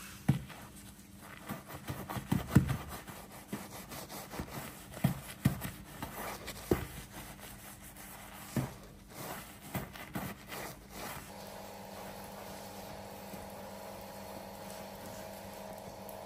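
Foam-laden detailing brush scrubbing in a car bumper's vent, with irregular swishes and sharp knocks of the brush against the bumper, loudest a few seconds in. About eleven seconds in, this gives way to a steady hum.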